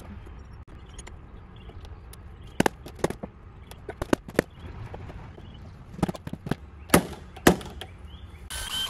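A mallet knocking on the wooden ladder frame of 2x4 rails and 2x2 rungs, seating the joints while the frame is held in pipe clamps: about a dozen sharp knocks in small irregular groups. Music comes in near the end.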